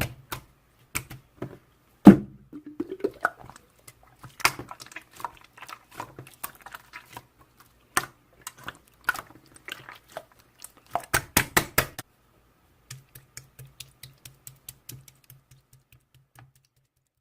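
Typing on a keyboard: irregular clicking keystrokes with one loud thump about two seconds in, then a quicker, even run of lighter taps near the end.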